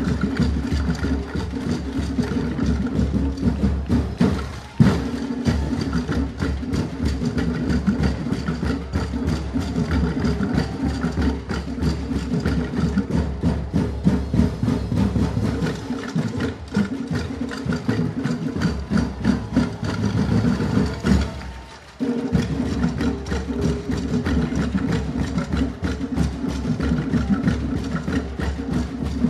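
Dinagyang tribal percussion ensemble of big drums playing a fast, driving beat. The drumming breaks off briefly about four and a half seconds in and again a little after twenty seconds.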